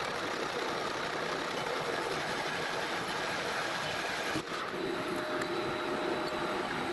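Metal lathe running and boring the inside of a large steel drill-pipe piece, with steady cutting noise. The noise dips briefly about four seconds in, after which a steady hum joins it.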